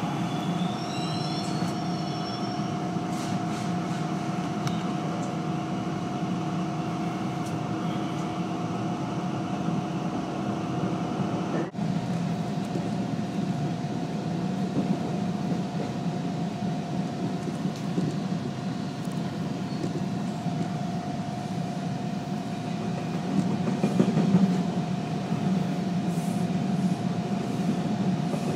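TTC subway train on the Yonge line running along the track, heard from inside the car: a steady rumble of wheels on rail under a constant motor whine, with a few short wheel squeals at the start. A second hum cuts out about twelve seconds in, and the rumble grows louder near the end.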